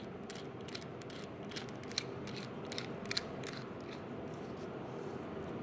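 Stainless steel Vapefly Brunhilde MTL rebuildable tank being screwed back together by hand: light, irregular metallic clicks and small scrapes of threads and parts, growing sparser near the end.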